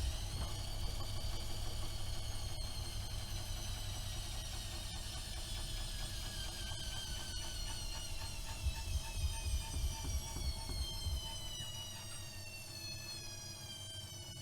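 AEG Öko-Lavamat 76730 washing machine's drum motor whining as the drum spins, the whine slowly falling in pitch as the drum slows down, over a low rumble from the drum that turns uneven near the end.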